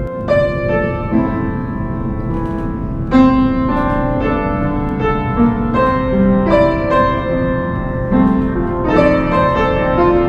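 Background music led by piano, with struck notes and chords over a soft low wash.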